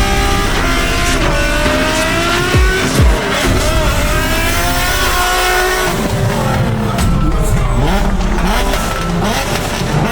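Vehicle engines revving up and down with tyres squealing, over music with deep bass hits in the first half.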